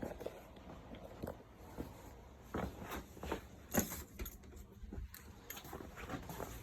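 Irregular light clicks and rattles of small hard objects being handled, about a dozen over a few seconds, the loudest nearly four seconds in.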